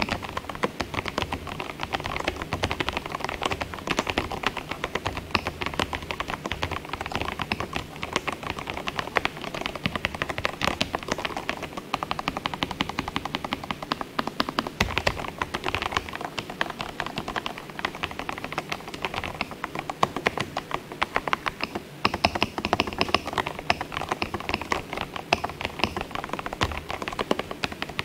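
Continuous typing on an EPOMAKER DynaTab 75X mechanical keyboard: a dense, unbroken stream of key clacks. The board has little hollow ring to it.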